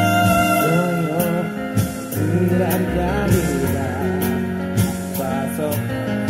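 Music with a singer's wavering melodic lines over a band with a steady bass line and drums.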